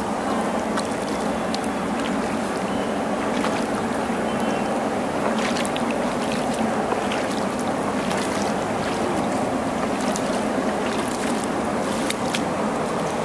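Steady rush of pool water flowing over and across a submerged concrete ledge, with scattered short splashy clicks from flip-flop steps in the shallow water.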